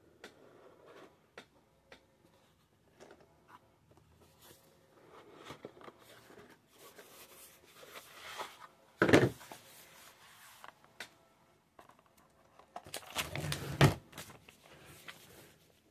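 Hands handling cardboard card boxes: light scattered clicks and scrapes, with a short louder knock about nine seconds in. Near the end, a folded paper rules sheet rustles and crackles as it is opened.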